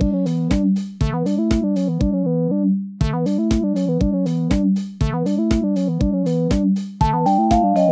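Electro-funk instrumental: a bouncing bass-and-keyboard riff repeats about every two seconds over a steady beat. The beat and the high end drop out briefly about two seconds in, and a higher melody line comes in near the end.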